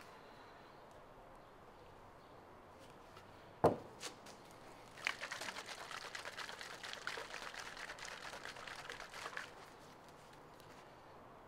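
An aerosol can of polyurethane spray foam sealant being shaken: a sharp knock a little under four seconds in, then about four seconds of quick rattling and sloshing from the can.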